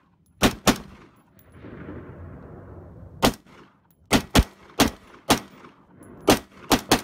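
M4-style semi-automatic rifle firing about ten single shots: a quick pair near the start, then after a pause a run of eight shots at irregular intervals of a fraction of a second to a second.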